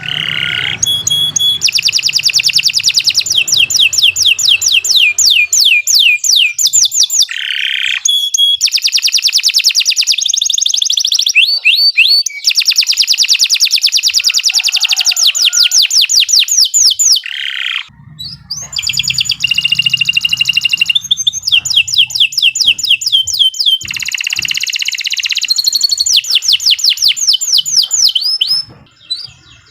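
Domestic canary singing a long, loud song of rapid trills, each made of quickly repeated falling notes, in phrases of several seconds. There are short breaks about two-thirds of the way through and again near the end.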